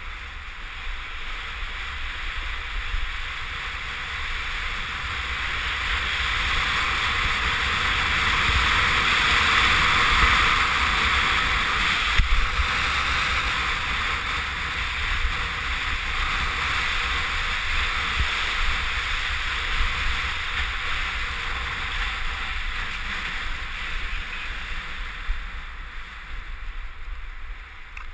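Wind rushing over a GoPro camera's microphone, mixed with skis hissing and scraping over packed snow on a downhill run. It grows louder with speed to a peak about ten seconds in, with one brief sharp knock just after twelve seconds, then eases.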